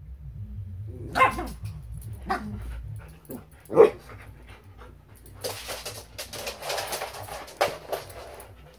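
A Labradoodle and a schnauzer mix play-fighting: short sharp barks about one, two and four seconds in, then a few seconds of scuffling and rustling on the blanket with a couple more sharp sounds.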